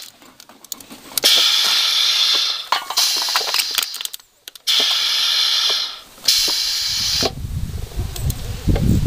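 Compressed air hissing in three bursts, each a second or two long, as the valve and pneumatic actuator of a homemade can crusher at 80 PSI cycle, with sharp clicks between. A low rumble with clicks comes in near the end.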